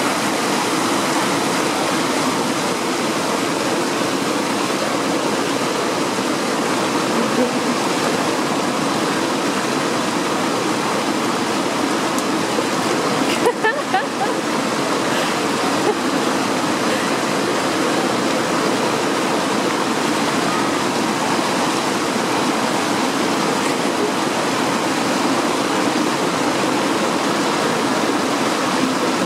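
River water rushing steadily over rocks and through rapids, with a short break of uneven level about halfway through.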